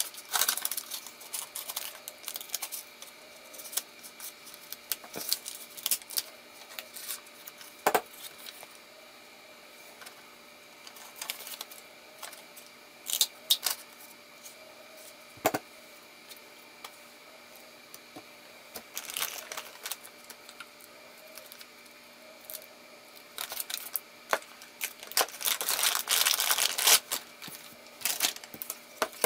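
Handheld plastic craft border punches clicking as they are pressed through paper, among scattered paper and plastic-bag handling noises. A dense stretch of rustling and clicking comes near the end.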